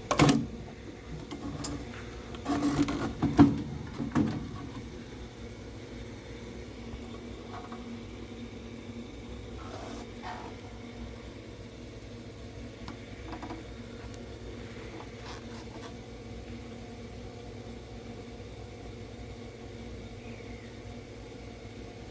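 Hand work on furnace parts: a few knocks and clatters of plastic and metal parts being handled in the first few seconds. After that a steady low hum with a few faint scattered clicks.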